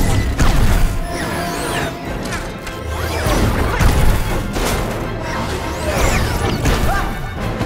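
Action-film sound mix: a film score under repeated crashes and impacts, with short gliding screeches throughout.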